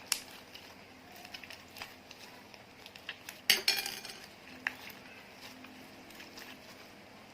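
Hard utensil clinking against a container while slime is mixed: a sharp ringing clink right at the start, a louder one about three and a half seconds in, and light taps between.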